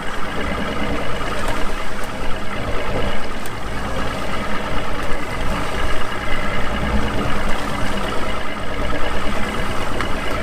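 An engine running steadily: a continuous low drone with a steady pitched hum that does not rise or fall.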